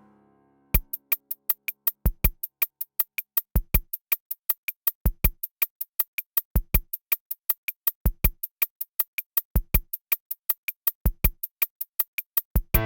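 Drum machine beat on its own, starting about a second in after the previous music fades out: a fast, even run of sharp clicks with a pair of low kick hits about every second and a half.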